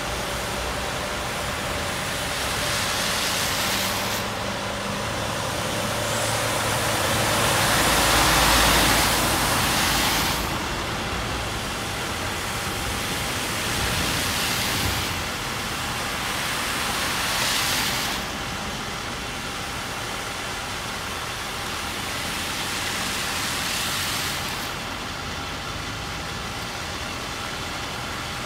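Cars driving one after another through standing floodwater. Each pass swells and fades as a rush of tyre spray: about five in all, the loudest about eight or nine seconds in. Underneath is the steady hiss of heavy rain.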